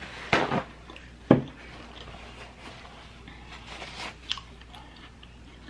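Close-miked chewing of a mouthful of boiled seafood, wet mouth sounds with two louder smacks in the first second and a half, then softer chewing clicks.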